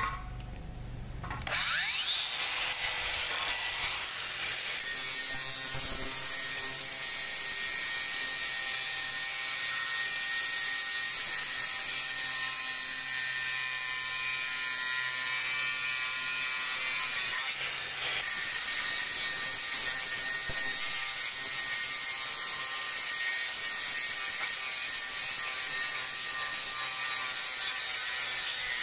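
Makita XGT GA005G 40 V cordless 125 mm angle grinder spinning up about a second and a half in, then cutting through a steel tube with a thin cut-off disc: a steady high motor whine over the hiss of the disc biting metal.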